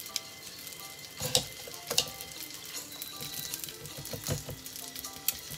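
Food frying in oil in a pan with a steady sizzle, broken by a few sharp clicks, over faint background music.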